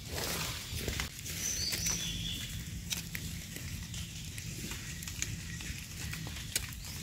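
Crackling and rustling of forest leaf litter as someone moves about, many short sharp crackles over a low rumble, with a couple of brief high chirps about one and a half to two seconds in.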